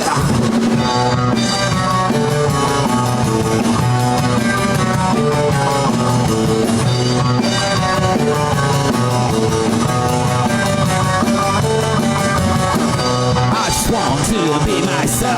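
Live rock band playing an instrumental passage, with guitar and a drum kit keeping a steady beat.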